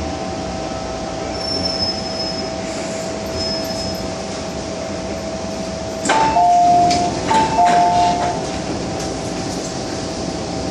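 MTR M-Train metro car from inside, running with a steady whine and rail noise as it comes to a stop. About six seconds in the doors open with a clunk, and a louder two-note chime, high then low, sounds twice.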